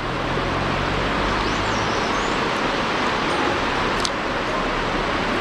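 Steady rushing noise with no pitch, with a low hum underneath that fades out about two seconds in and a single click near the end.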